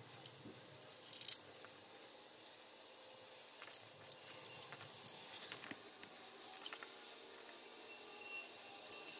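Scattered light metallic clicks and clinks of hand tools and loose bolts during work on an engine's oil pan bolts, the loudest cluster about a second in.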